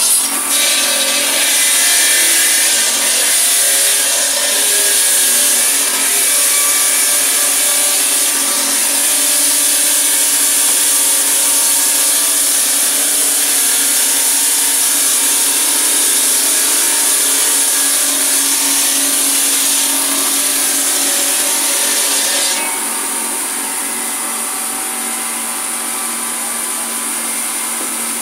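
Water-cooled diamond-blade stone saws cutting marble slabs: a steady, loud, high-pitched grinding noise. About 22 seconds in the high hiss drops away and the noise gets somewhat quieter.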